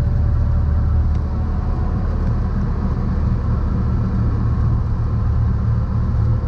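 Cessna 172's piston engine running steadily, an even low drone with no change in pitch.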